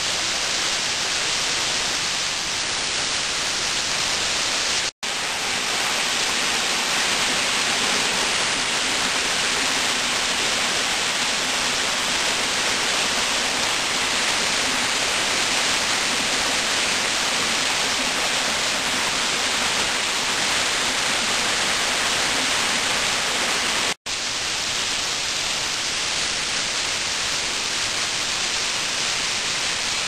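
Waterfall pouring over rock into a pool: a steady rushing of falling water. It cuts out for an instant twice, about five seconds in and again about twenty-four seconds in.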